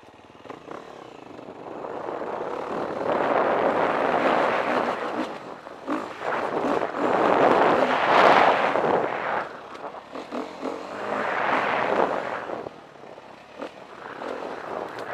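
KTM 350 EXC-F single-cylinder four-stroke dirt bike engine pulling under throttle along a trail, rising and falling in surges, with wind rushing over the helmet camera's microphone.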